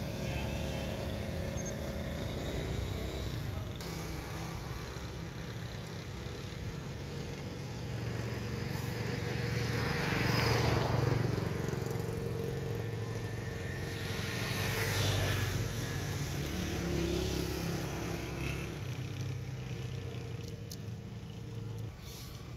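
Steady low engine noise, swelling louder twice, about ten and fifteen seconds in, like motor vehicles passing.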